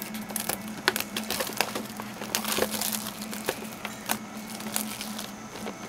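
A sealed trading-card box being unwrapped and opened: a quick, irregular run of sharp crinkles and crackles from the wrapping and cardboard.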